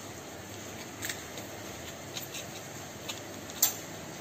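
An egg being cracked open over a bowl with a knife: a few light clicks of the blade against the shell and bowl, with one sharper tap near the end, as the shell is pulled apart and the egg drops in.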